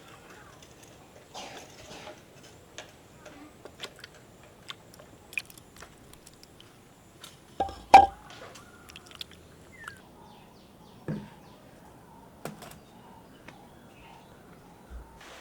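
Scattered light clicks and knocks, with one loud, sharp knock about halfway through: objects being handled, typical of kitchen work.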